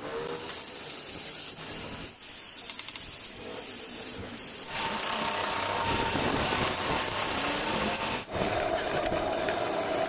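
A metalworking machine running with a steady mechanical whirr and scraping, growing louder about halfway through.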